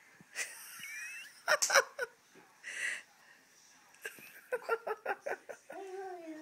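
Young children vocalizing while dancing: breathy huffs and a quick run of pitched syllables, like giggling or chanting, ending in a drawn-out note that rises and falls.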